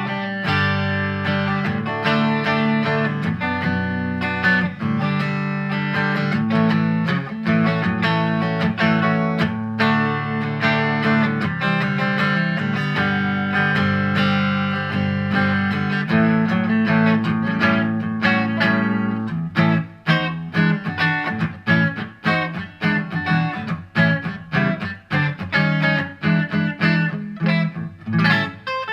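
Fender Modern Player Telecaster electric guitar played through a Vox VT20X modelling amp on its middle, Strat-style single-coil pickup alone. Ringing, connected phrases give way about two-thirds through to choppy, short picked notes and chords that cut off quickly.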